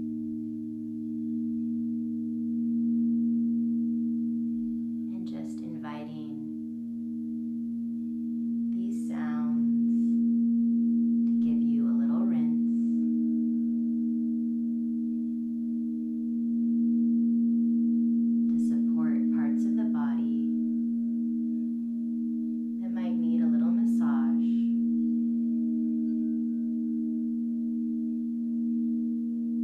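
Crystal singing bowls sung by a mallet circling the rim, holding two strong steady low tones with softer higher ones and a slow pulsing beat. A voice comes in briefly five times over the ringing.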